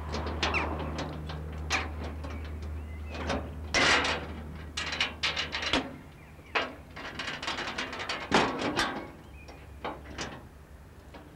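Irregular clicks and metallic clanks of hands working at a lineside railway equipment cabinet, with a steady low engine hum underneath that fades out about halfway.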